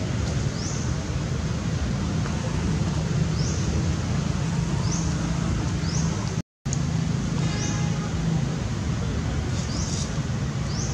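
Steady low outdoor background rumble, with short high rising chirps recurring every second or so. The sound cuts out completely for a moment about six and a half seconds in.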